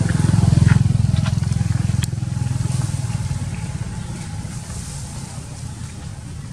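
A motor vehicle's engine rumbling nearby, loudest in the first second and then fading away as it moves off. A sharp click comes about two seconds in.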